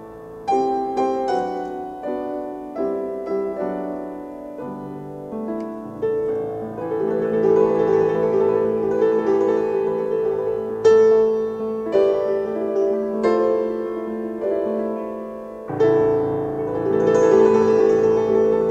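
Petrof grand piano played solo: separate chords at first, opening out about six seconds in into fuller, sustained chords, with strong accented chords about eleven and sixteen seconds in.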